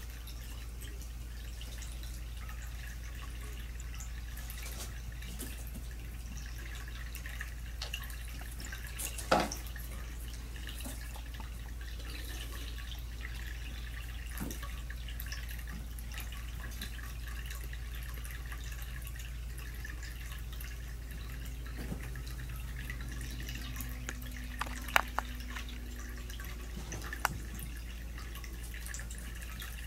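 Steady low hum of room noise with a few isolated sharp clicks: a loud one about nine seconds in and a small cluster near the end.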